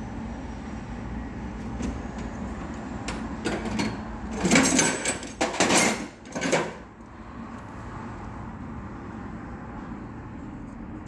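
Hand tools working on a Mercedes-Benz door lock: a few sharp metal clicks, then about two seconds of loud scraping and rattling, over a steady low background hum.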